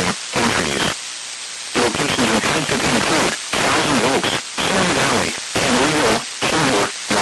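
A voice reading a weather warning broadcast, nearly buried under a constant hiss of radio static, with a short break in the voice about a second in.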